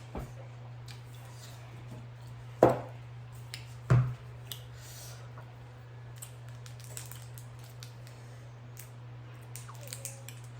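Close-miked eating: scattered wet clicks and smacks of chewing, with two louder knocks about two and a half and four seconds in, over a steady low hum.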